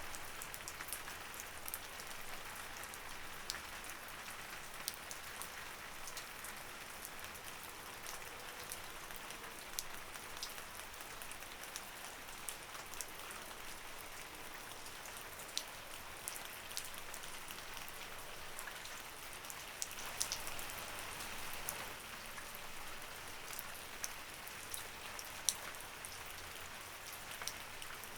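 Light rain falling steadily, a soft even hiss with scattered sharp ticks of single drops hitting a surface; it swells slightly about two-thirds of the way through.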